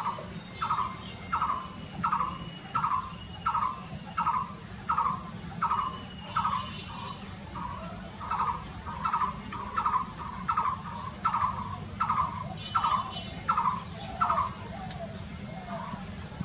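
A bird calling the same short note over and over, about three calls every two seconds, over a steady low hum.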